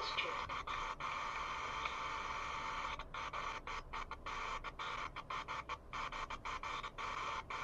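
Steady high buzzing hiss with faint whining tones, background noise on the recording, cutting out briefly many times.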